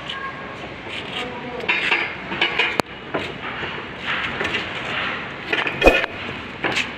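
Steel reinforcing bar being bent by hand with a lever bending bar on a wooden jig: irregular metallic clinks and clanks of rod and bar against the pins. One sharp click comes about three seconds in, and a cluster of louder clanks comes near the end.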